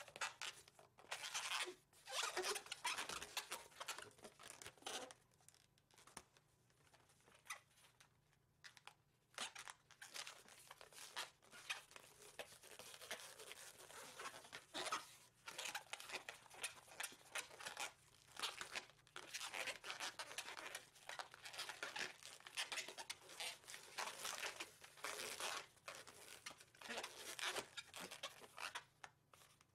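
Inflated 260 latex modelling balloon squeaking and rubbing under the hands as it is twisted and bent into shape, in many short, uneven bursts.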